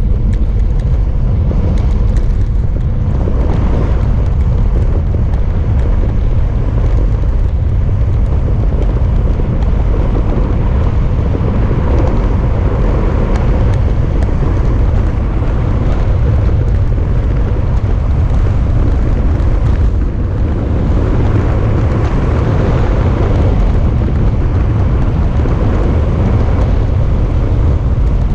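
Loud, steady wind rush buffeting a GoPro's microphone on a bicycle descending a mountain road at speed.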